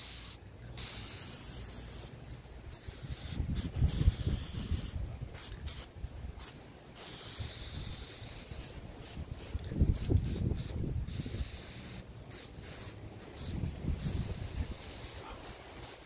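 Aerosol can of high-heat spray paint hissing in repeated short bursts as it is sprayed along steel rods, with wind buffeting the microphone in low rumbling gusts.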